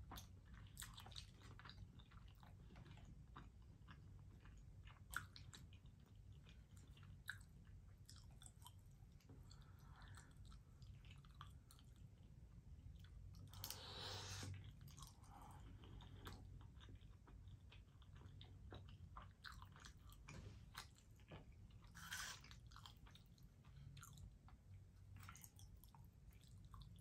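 Faint close-up chewing and mouth sounds of a person eating forkfuls of soft macaroni and cheese, with scattered small clicks and one louder burst of mouth noise about halfway through.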